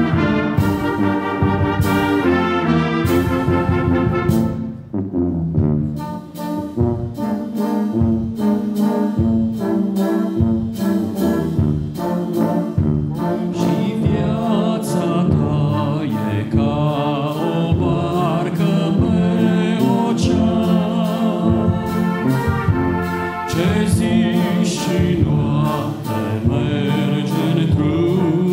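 Brass band of trumpets, trombones, euphoniums and sousaphone, with flutes, clarinets and a bass drum, playing a hymn tune, with a short break about five seconds in.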